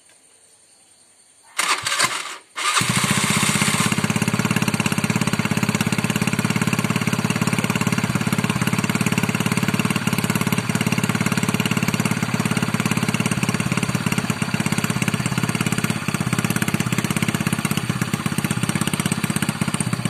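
Mini bobber pocket bike's small engine being started: a short burst of cranking about a second and a half in, a brief stutter, then it catches and runs steadily at idle.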